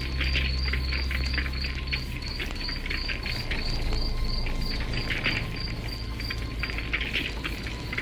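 A cricket chirping steadily at about three chirps a second, over the irregular crackle of a wood campfire and a steady low hum.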